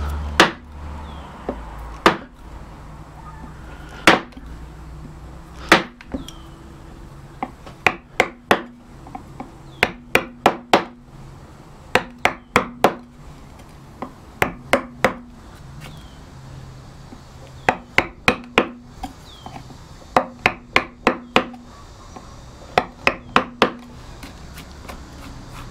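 A carving gouge driven into a wooden board by blows of a wooden mallet: sharp taps, single ones every couple of seconds at first, then short runs of three to five quick strikes with pauses between.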